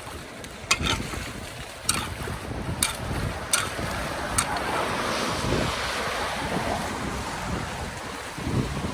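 Floodwater swirling and draining away, a steady watery rush that grows louder about halfway through, with wind on the microphone. Five sharp knocks or splashes come about once a second in the first half.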